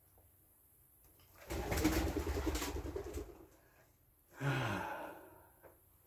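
A pigeon calling: a longer, rough call about a second and a half in, then a shorter breathy one that falls in pitch.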